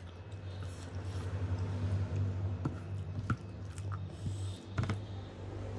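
Fingers mixing rice with egg curry on a plate: soft, wet squishing of the food, with a few sharp light clicks about halfway through and near the end, over a low steady hum.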